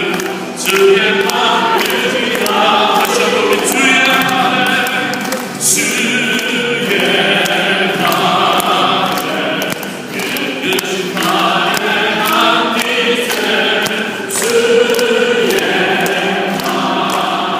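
A roomful of people singing a praise song together and clapping along to a steady beat.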